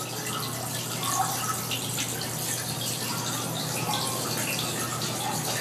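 Steady sound of running, gushing water, standing for the water spilling out of the pool in the performance.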